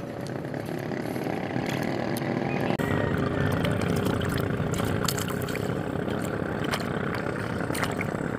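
A motorboat engine running steadily, growing louder over the first three seconds and then holding, with a few small clicks on top.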